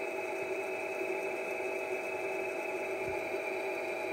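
AEG bench drill press running free, its electric motor and spindle giving a steady whirring hum with several fixed tones.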